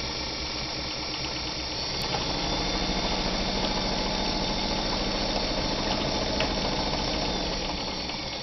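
Early-1960s Kenmore 148.210 sewing machine running steadily and smoothly, sewing a straight stitch through cotton shirting. It picks up a little about two seconds in and eases off near the end.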